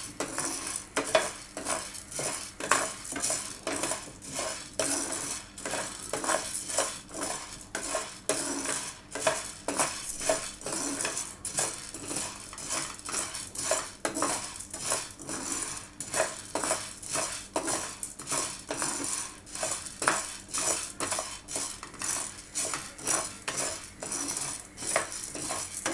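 Dry sago pearls (sabudana) rattling and scraping in a black frying pan as a plastic spoon stirs them round, in repeated strokes about twice a second. The pearls are being dry-roasted until they swell.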